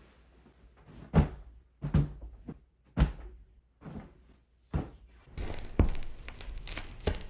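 A series of sharp knocks and thuds, about one a second, from things being handled and set down, with steadier background noise coming in about five seconds in.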